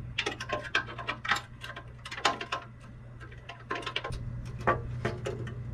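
Socket ratchet clicking in quick, uneven runs as the bolts holding an underbody panel are loosened, with a few light metal clinks.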